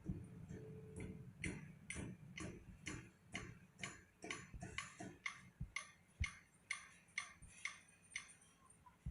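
Faint, regular ticking, about two or three ticks a second, starting about a second in and stopping shortly before the end.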